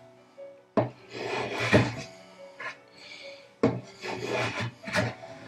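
Two long hand-tool strokes scraping across the wood of a dovetailed box carcass, each starting sharply and lasting about a second and a half, as uneven surfaces at a joint are trimmed flush.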